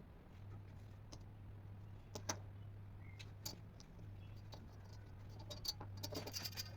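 Faint scattered light clicks and taps over a steady low hum, with a quick flurry of clicks near the end.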